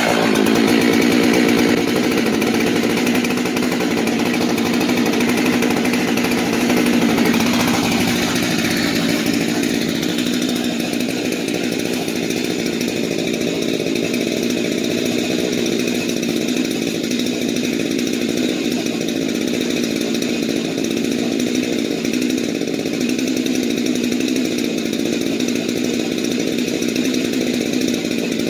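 Jonsered 2186 two-stroke chainsaw running steadily with a 32-inch bar, its sound changing about eight seconds in.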